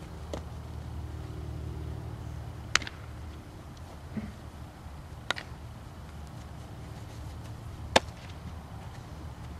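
Sharp smacks a few seconds apart from softball fielding practice. The loudest, near the end, is a softball landing in a leather fielder's glove on a running catch. A steady low rumble lies underneath.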